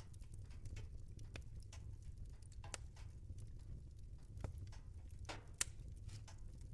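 Wood fire crackling: irregular sharp crackles and pops over a steady low rumble, with one louder pop late on.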